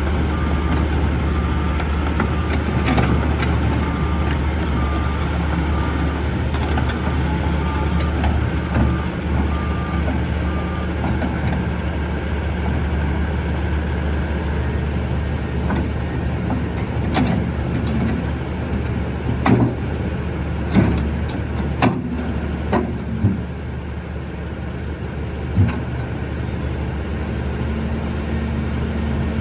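Kobelco SK210 excavator's diesel engine running steadily. For the first ten seconds or so its travel alarm beeps about once a second. In the second half there are several sharp metallic knocks.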